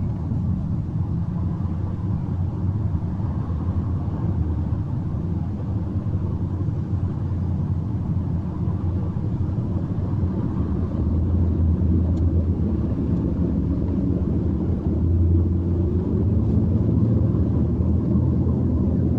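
Steady low rumble of city traffic, growing a little louder in the second half.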